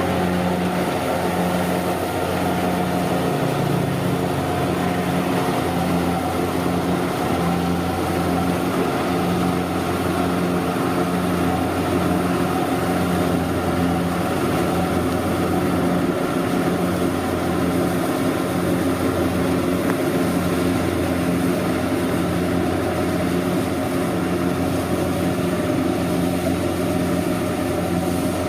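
Kubota DC-70 rice combine harvester's diesel engine running steadily, with a regular pulsing hum from the machinery.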